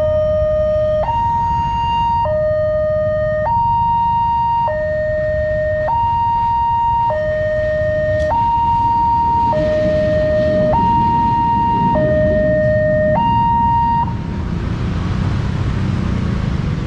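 Railway level-crossing alarm in the Daop 8 Surabaya style, alternating evenly between a low and a high tone, each held a little over a second. From about halfway a passing diesel locomotive's rumble builds under it. The alarm stops about 14 s in, giving way to road traffic noise.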